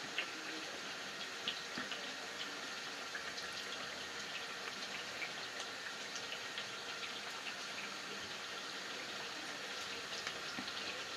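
Faint rustles and soft taps of a tortilla wrap being folded by hand over a steady background hiss.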